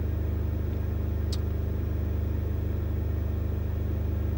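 Truck's diesel engine idling steadily, a low rumble heard inside the cab, with one short light click about a second in.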